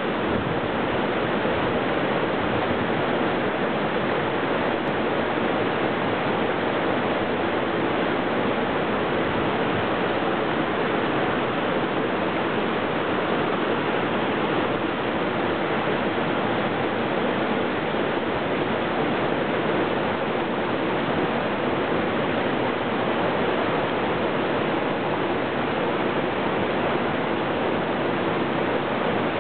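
Creek water rushing steadily over small cascades into rock pools.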